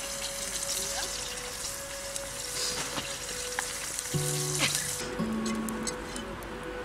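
Food sizzling and spitting in a pan over the fire, a dense hiss with small crackles, which cuts off abruptly about five seconds in as guitar music takes over.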